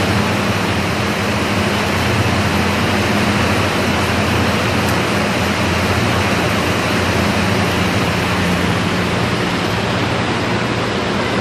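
Loud, steady machinery noise of a poultry processing plant, with a constant low hum running under it.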